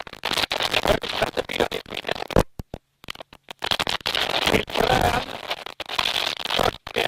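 Harsh, crackling road and engine noise of the rally car driving a gravel stage, picked up inside the car. It comes in two long stretches that cut in and out abruptly, with a second of silence between them.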